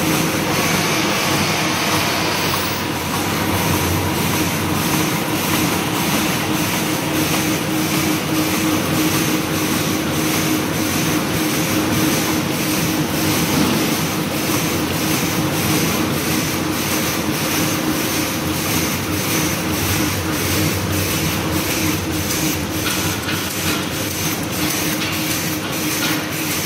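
Automatic tableware packing machine, folding napkins and wrapping them with plastic cutlery in film, running steadily: a mechanical hum with a regular clack about twice a second.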